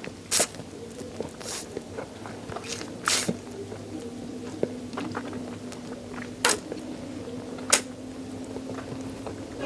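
Close-miked biting and chewing on chicken neck bones: sharp, wet crunches every second or two between quieter mouth sounds.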